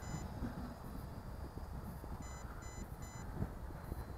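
Drone remote controller's low-battery warning: quick electronic beeps in threes, one beep right at the start and then a set of three about two seconds in, over low wind rumble on the microphone.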